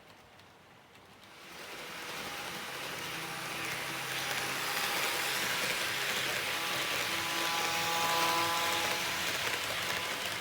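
HO gauge model train running along the track: a steady motor whine over wheel and rail rumble, starting about a second and a half in and growing louder as the train approaches.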